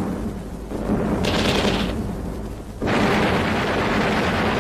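Film battle sound: dense, continuous gunfire mixed with booming explosions, changing abruptly at cuts about a second in and again near three seconds.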